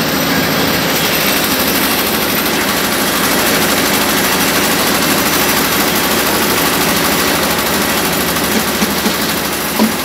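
Stationary concrete pump running, its diesel engine and machinery making a loud, steady mechanical noise. Near the end a few short knocks come about twice a second.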